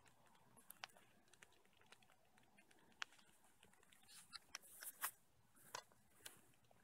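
Near silence, broken by scattered faint clicks and rustles, most of them bunched together around four to five seconds in.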